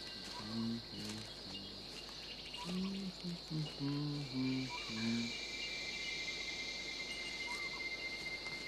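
A steady insect chorus with a high continuous buzz. Low, slow held musical notes change pitch step by step in roughly the first half and then fade out.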